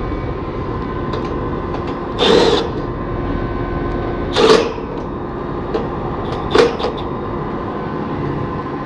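Three short, loud bursts as screws are backed out of the sheet-metal top of a Carrier round condenser with a driver, over a steady background drone.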